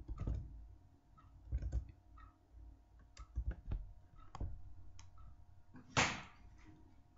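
Irregular soft clicks and light knocks from a computer keyboard and mouse being used. The loudest is a short, harsher burst about six seconds in, over a faint steady hum.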